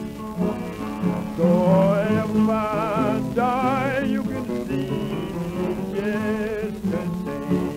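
1927 country blues record of a diatonic accordion backed by two guitars playing an instrumental passage. Steady accordion chords and plucked guitar run under a high wavering, warbling melody line that rises about a second and a half in and fades out near the end.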